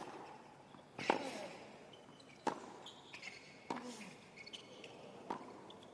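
Tennis rally on a hard court: a tennis ball struck by rackets five times, a sharp crack about every second and a half, back and forth between the two players. Short high squeaks come between the strikes.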